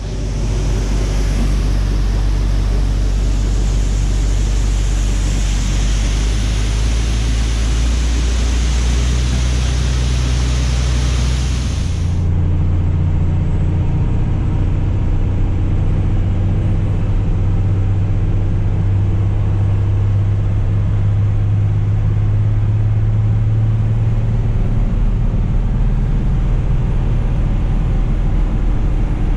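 Harvest machinery running steadily with a low engine hum. A loud hiss that sits over it stops abruptly about twelve seconds in, and the engine keeps running.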